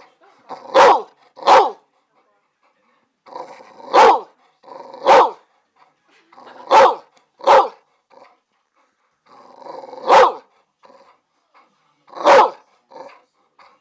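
A boxer barking over and over, about nine sharp barks mostly in pairs, with low growling before some of them, at a wooden clothespin clipped to its ear.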